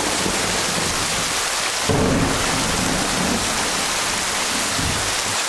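Thunderstorm sound effect: a steady hiss of heavy rain, with a low rumble of thunder that swells about two seconds in and rolls on for about three seconds.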